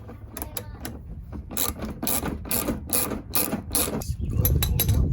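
Hand ratchet wrench clicking in a series of back-and-forth strokes as it tightens a headlight mounting bolt.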